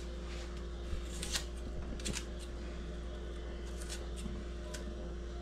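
Kitchen knife paring the dry papery skin off a whole onion: a few short, crisp scraping and crackling strokes spaced irregularly.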